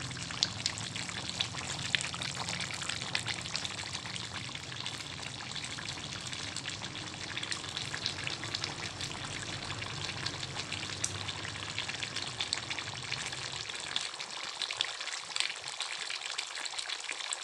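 Chicken afritada simmering in a pan: the tomato sauce bubbles and sizzles steadily with many small pops. A low hum underneath stops about fourteen seconds in.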